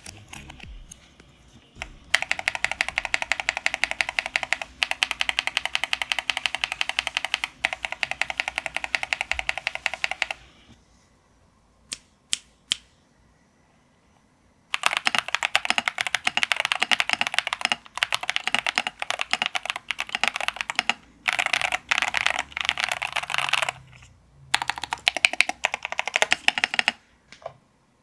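Typing on a KBD67 Lite mechanical keyboard with lubed tactile switches: two long runs of rapid key clacks. The first starts about two seconds in; the second follows a pause of a few seconds that holds only a couple of single clicks, and it stops briefly twice before ending near the end.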